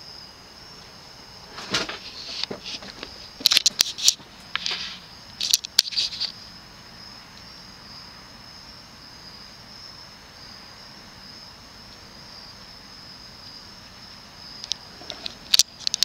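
A 1984 Panasonic Lancelot ceiling fan turns almost silently on low speed, its faint low hum lying under a steady high-pitched chirring of crickets. A few sharp clicks and rustles come between about two and six seconds in and again near the end.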